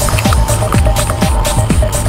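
Electronic dance music with a steady four-on-the-floor kick drum about two beats a second, hi-hats and a sustained synth tone.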